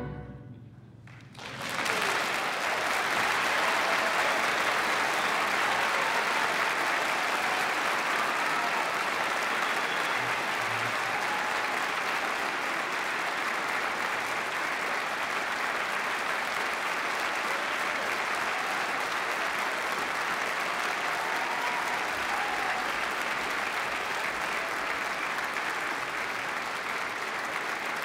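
The orchestra's last chord dies away in the hall's reverberation, and about a second and a half in the audience breaks into steady, even applause.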